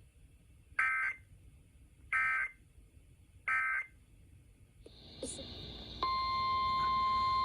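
Emergency Alert System end-of-message data bursts: three short warbling digital tone bursts about a second and a half apart. Radio static hiss follows, and about six seconds in a steady 1050 Hz NOAA Weather Radio warning tone starts, signalling a new alert.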